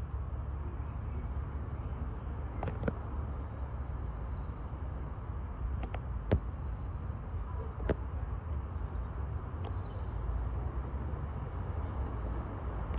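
Class 150 diesel multiple unit running in the platform, a steady low rumble, with a few sharp clicks and knocks scattered through it.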